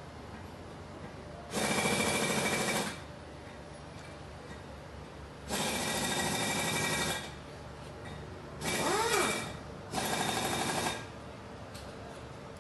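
Handheld power tool run in four short bursts of one to two seconds each, its motor whirring up and back down in the third burst.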